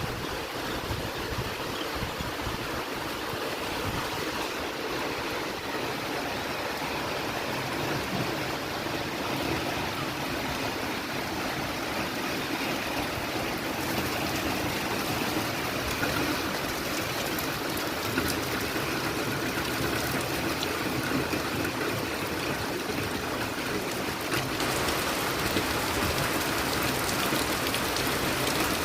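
Heavy rain pouring down steadily, growing a little louder about three-quarters of the way through.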